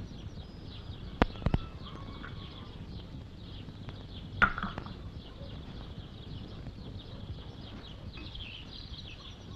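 Small birds chirping steadily, with a few sharp knocks: two close together about a second in and one more about four and a half seconds in.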